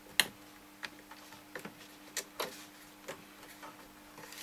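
Scattered small plastic clicks, about eight over the few seconds and the loudest just after the start, as fingers press the button panel of a BC20 Bluetooth upgrade board in a Bose SoundDock down into place and work its buttons through their holes. A faint steady hum lies underneath.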